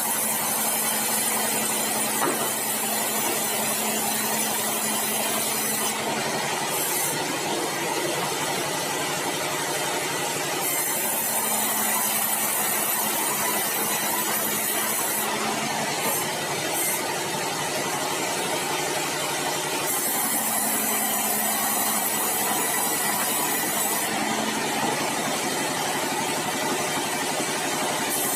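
Sawmill band saw running steadily, with a bright hissing cutting sound and a low hum that come and go in spells of about four to six seconds, as keruing timber is sawn.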